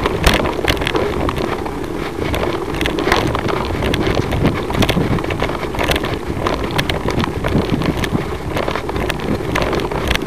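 Wind rushing over the microphone of a moving, vehicle- or bike-mounted camera, with frequent irregular knocks and rattles from the camera and its mount jolting over the road surface.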